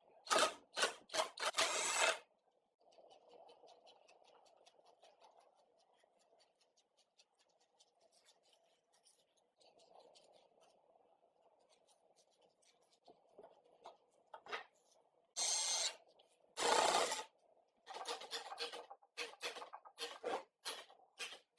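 Scraping strokes of hand work on rusty parts. A quick run of strokes comes at the start, then several seconds with only a faint hum, then two longer strokes and another quick run near the end.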